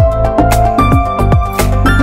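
Background electronic music with a steady beat and a synth melody.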